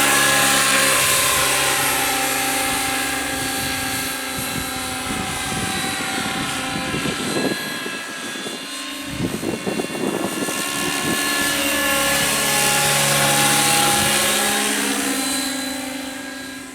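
Radio-controlled scale Bell 222 model helicopter flying: a steady whine from its rotor and motor, choppier and unsteady in the middle, then shifting in pitch before fading out near the end.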